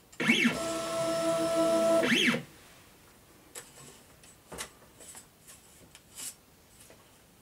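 Ultimaker Original Plus stepper motors driving the print head across the bed: a whine that rises in pitch, holds steady for about two seconds, then falls and stops. A few faint scattered clicks follow.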